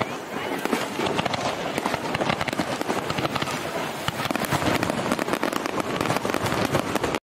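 Fireworks display: a dense, rapid run of sharp cracks and pops from bursting shells and sparking fountains, cutting off suddenly just before the end.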